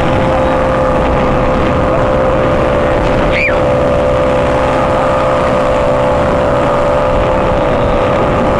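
Motorboat's engine running steadily at cruising speed, a constant drone with a steady whine, over rushing water from the hull and wake. A short high chirp cuts in about three and a half seconds in.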